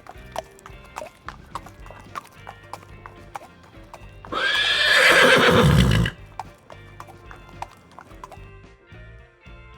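Horse hooves clip-clopping at a steady walk, with one loud neigh about four seconds in that lasts nearly two seconds. Background music plays underneath.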